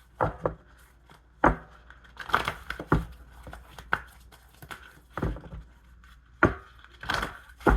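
Tarot cards being handled and set down on a table: irregular sharp taps and slaps, about ten in all, with brief rustling of the cards.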